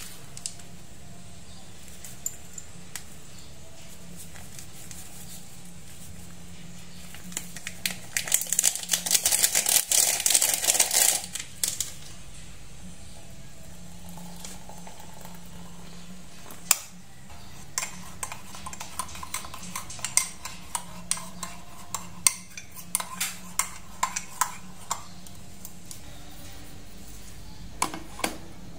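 Kitchenware clinking as a mocha latte is made: a ceramic mug and utensils knocked and scraped on a stone countertop. A dense run of quick clinks lasts a few seconds, then single clinks and taps follow, with a couple more near the end as a glass is set into a capsule coffee machine.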